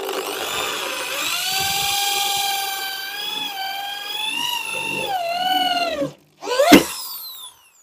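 Makita M8104B 430 W corded hammer drill driving a screw into a steel bar, its motor whining steadily with the pitch wavering as the trigger and the load change. It stops about six seconds in, then a short trigger blip spins the motor up and lets it wind down.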